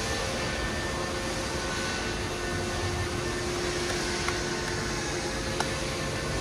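Steady machinery hum with a faint held whine over it, and two light clicks near the end.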